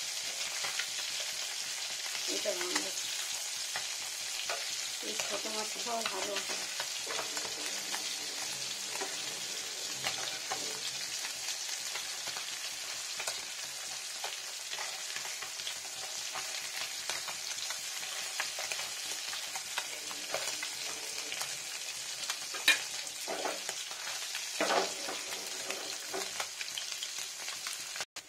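Small whole fish frying in mustard oil in a nonstick pan over a high gas flame: a steady sizzle, with a metal spatula now and then scraping and turning the fish, and a couple of sharper knocks of the spatula near the end.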